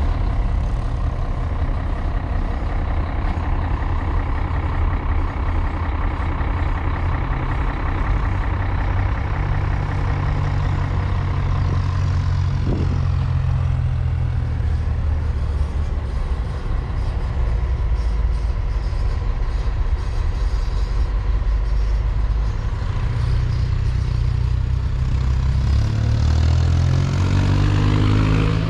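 1973 AEC Mandator tractor unit's diesel engine running steadily at low revs, its pitch rising near the end as it is revved up.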